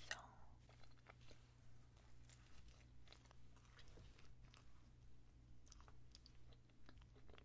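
A person chewing a mouthful of sprinkle-covered donut close to the microphone: faint wet mouth clicks and light crunching, a little louder at the very start.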